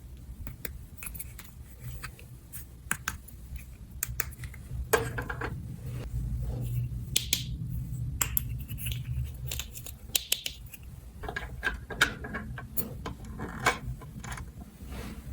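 Small plastic toy pieces being handled: irregular light clicks, taps and scrapes over a low steady hum.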